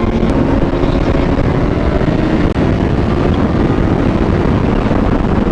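Kawasaki Ninja H2's supercharged inline-four running steadily while riding, under wind noise on the rider's microphone.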